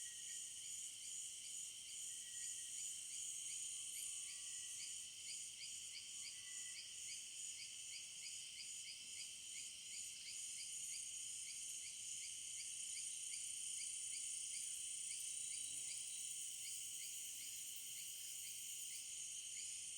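Dusk chorus of insects: a steady high-pitched buzzing with a fast, evenly repeating chirp running through it.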